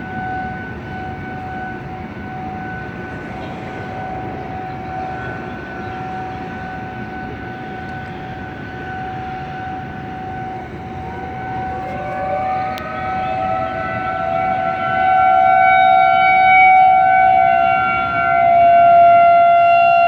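Outdoor civil-defense warning sirens sounding a steady tone in a weekly siren test. About eleven seconds in, a second siren winds up, its pitch rising until it settles close to the first, and the sound grows clearly louder.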